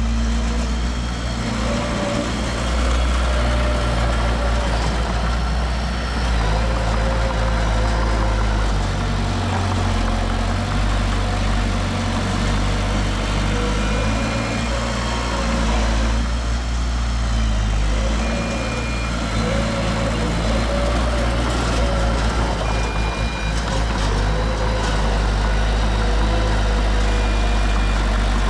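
Diesel engines of heavy construction machinery running in a low, steady drone that rises and falls in pitch as they work. Short high beeps come about every four seconds in the second half.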